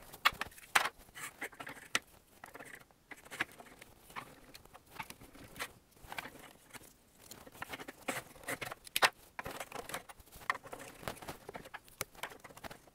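Hard plastic marble run pieces being handled and pushed together on a wooden table: a string of irregular light clicks and taps.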